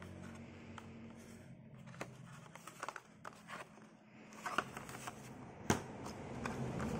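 A Hot Wheels blister-pack card being handled: light plastic and cardboard clicks, crinkles and scrapes, with a sharper tap near the end as the card is set down on a glass counter.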